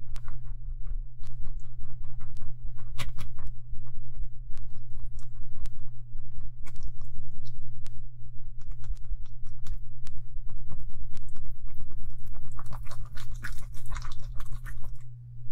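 Black silicone spatula stirring a thick, sticky powder-and-sugar slime paste in a glass bowl: a run of wet squelching clicks, busier near the end, over a steady low hum.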